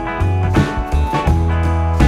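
Background music with a deep bass line and a steady beat.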